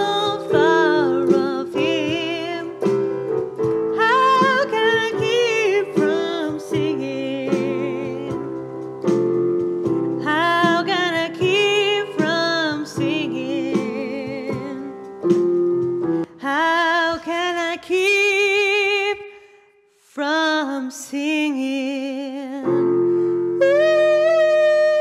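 Music: a singer's voice with strong vibrato over sustained instrumental accompaniment, breaking off into a brief near-silence about twenty seconds in before the singing resumes.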